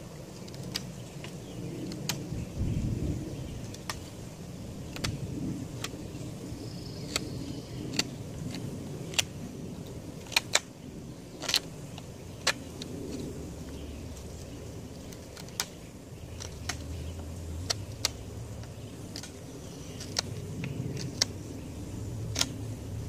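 Marttiini knife whittling the end of a bamboo pole: sharp, irregular clicks and snaps as the blade bites and shaves the hard cane. A steady low rumble runs underneath.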